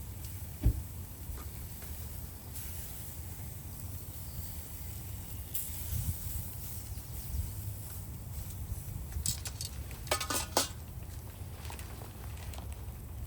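Shashlik cooking on a barbecue grill: a steady low background with a single thump just under a second in, then scattered crackles and metallic clinks of the skewers, most of them about nine to ten and a half seconds in.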